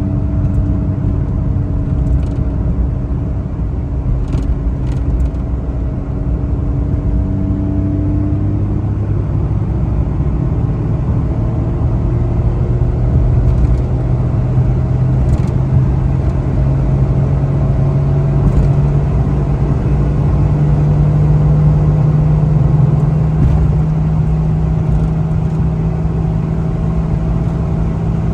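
Suzuki Every kei van's small three-cylinder engine running under way with road rumble; its note changes about nine seconds in, then climbs slowly as the van gathers speed and holds steady near the end. A few faint clicks sound in the first half.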